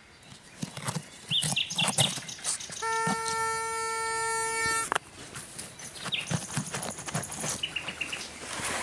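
A metal-detecting pinpointer probed into a dig hole gives a steady electronic buzz for about two seconds, a sign of metal in the soil. Around it come the scrape and crumble of earth being dug by hand, and short bird chirps.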